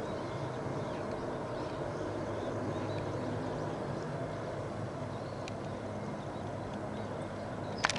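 Steady distant drone of a military hovercraft running at speed across open water.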